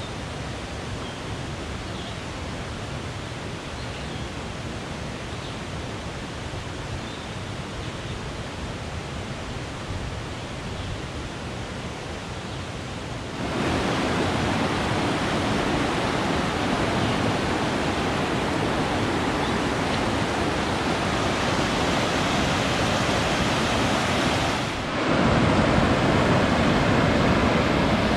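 Mountain creek (Kephart Prong) rushing and cascading over boulders, a steady whitewater roar. It jumps suddenly louder about halfway through and again near the end.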